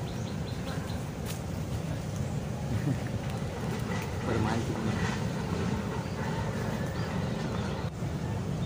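Wind buffeting the microphone, a choppy low rumble, with faint voices in the background.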